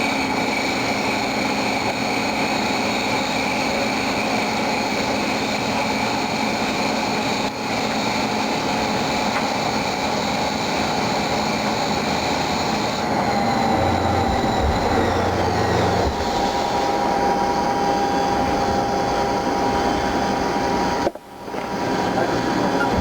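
Haas CNC lathe running a cut on an aluminum workpiece: steady machining noise with whining tones that change pitch about halfway through, a few high tones sliding down. The sound breaks off briefly near the end, then resumes.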